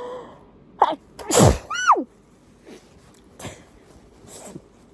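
A person sneezing once, likely into a tissue: a sharp breath in, then the loud sneeze about a second and a half in, ending on a voiced, falling tail. A few short, softer sounds follow.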